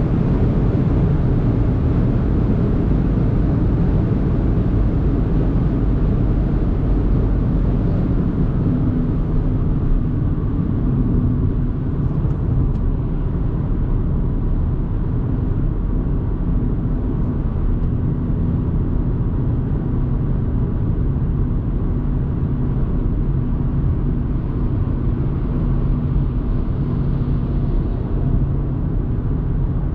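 2024 Audi A3 Sportback with the 1.5 TFSI four-cylinder petrol engine, driving at speed: steady road and wind noise. A steady engine hum comes through from about nine seconds in.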